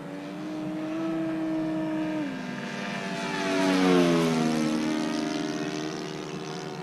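Radio-controlled model warplane's engine and propeller running steadily, stepping down in pitch about two seconds in. It then grows louder as the plane passes by about four seconds in, and falls in pitch as it moves away.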